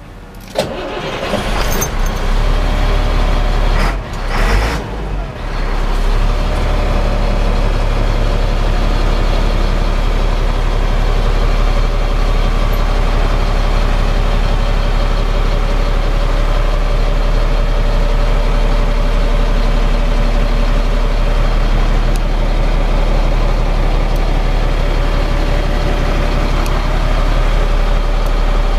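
A Freightliner FL80 truck's diesel engine cranks and fires in the first few seconds, with uneven surges as it catches. It then idles steadily with a deep low hum.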